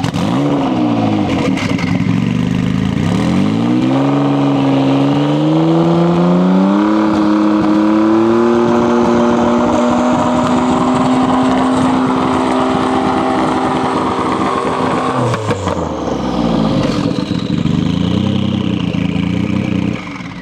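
A supercar engine revving while stationary. After a few short blips, the revs climb in steps and are held high for about ten seconds. They then drop back, and there are more blips near the end.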